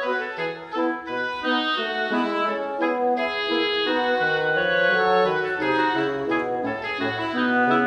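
Instrumental background music: a melody of held notes changing every half second or so over sustained chords.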